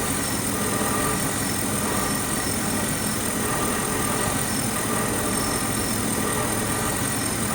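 Car engine idling steadily, with a thin high-pitched whine running over it.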